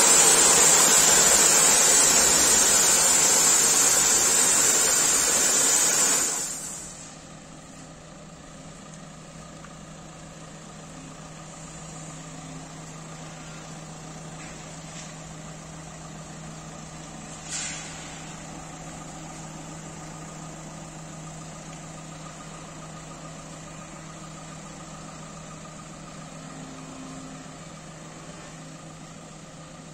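A touchless car wash machine's spray jets hiss loudly as they lay foam over a car, then shut off after about six seconds. A steady low machine hum with a faint steady tone follows, broken once by a short click.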